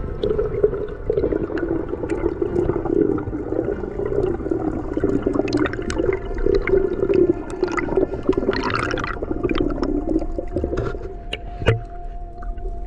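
Water sloshing and gurgling, muffled, with scattered sharp clicks throughout and a brief hiss a little before the ninth second.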